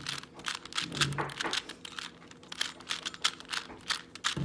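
2x2 speed cube being turned by hand: a quick, irregular run of plastic clicks and clacks as the layers snap round.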